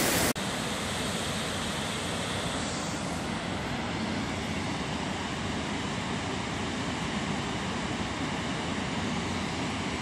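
Steady rushing of spring water pouring out of a cave mouth over rocks into a pool.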